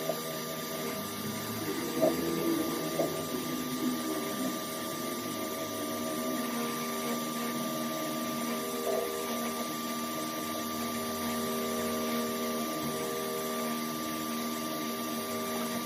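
Small electric motor running steadily with a constant hum, with a few brief knocks or scrapes about two and three seconds in and again near nine seconds; it cuts off suddenly at the end.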